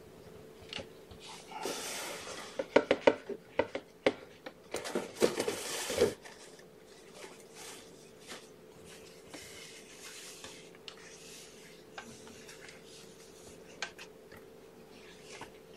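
Rustling with a quick run of crackles and clicks for a few seconds, like paper or a tissue being handled close to the microphone. After that come only a few faint ticks over a faint steady hum.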